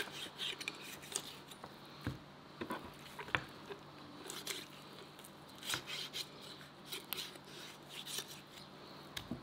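Kitchen knife jointing a raw whole chicken on a wooden cutting board: blade slicing through skin and joints, with irregular small clicks and a few sharper knocks of the knife against the board.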